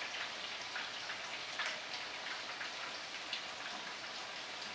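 Batter-coated chicken pieces frying in hot oil in a pan: a steady sizzle with scattered crackles and pops.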